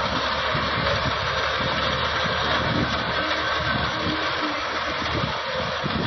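Tractor engine running steadily as it drives a mounted reaper cutting wheat, the noise even throughout.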